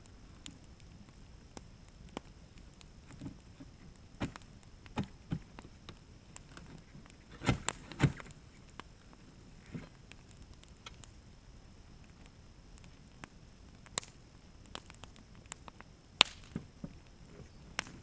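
Scattered sharp pops and knocks from a pallet-wood fire burning under an old water heater tank and from a long-handled shovel working against the tank, loudest as a close pair about halfway through.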